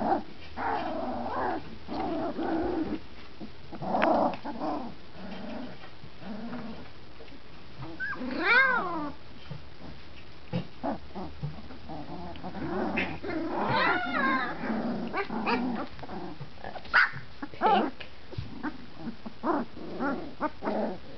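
A litter of 20-day-old puppies play-fighting, with small growls, yips and whines as they find their voices. About eight seconds in, one drawn-out whine rises and falls, and near the end come many short sharp yips.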